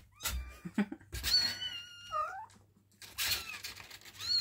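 Young kittens mewing: several high-pitched mews, with one longer call about a second in that drops in pitch at its end.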